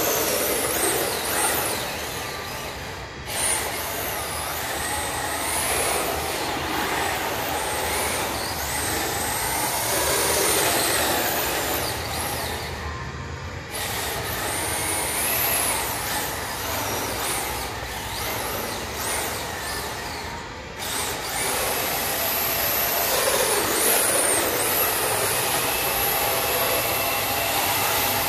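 Motor of a radio-controlled dually pickup truck whining, its pitch rising and falling with the throttle and cutting out briefly three times, with the tyres hissing and spraying through water on a wet concrete floor.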